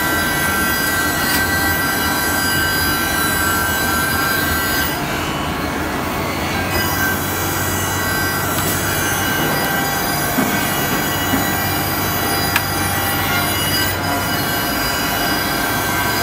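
Heavy-duty double-end cutting and milling woodworking machine running, its motors and spinning cutters giving a steady loud hum with a high, multi-toned whine, with a few light clicks in the second half.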